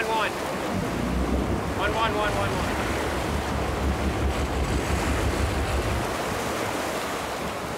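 Wind buffeting the microphone and sea water rushing past the hull of a moving boat, over a low rumble that drops away about six seconds in. A short call from a voice about two seconds in.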